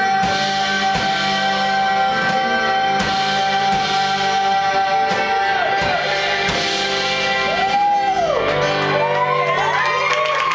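A man's singing voice holding a long final note over guitar accompaniment, the note wavering after about five seconds, then sliding up and down in vocal runs near the end.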